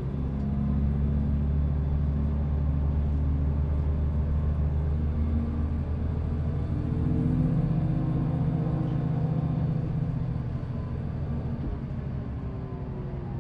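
2005 New Flyer D40LF transit bus's Cummins ISL inline-six diesel engine and ZF Ecomat II automatic transmission running: a steady low drone with fainter whine tones whose pitch drifts gently up and down. It grows somewhat quieter over the last few seconds.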